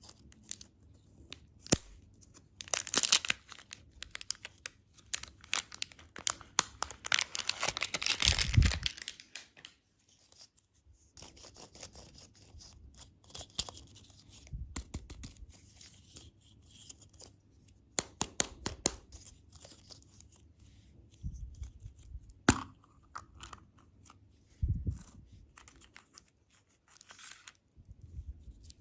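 Candy packaging being opened by hand: plastic wrappers tearing and crinkling in a dense run for several seconds, then scattered sharp clicks and taps.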